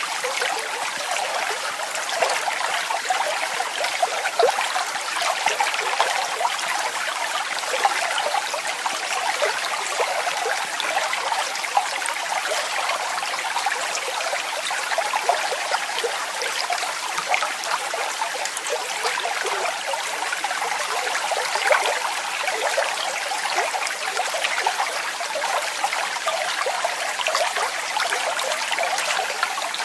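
Water falling and splashing steadily, a continuous rush full of small, quick splashes and drips, without a deep low rumble.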